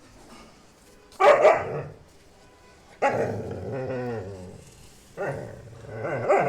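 Dog barking: a few loud barks over several seconds, the second one drawn out.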